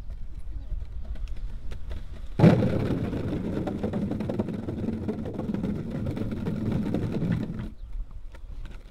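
Longboard's 6-inch wheels rolling over a wooden plank footbridge: a sudden, loud rumbling clatter starting about two and a half seconds in and lasting about five seconds. Before and after it there is a low rumble as the wheels roll on the concrete path.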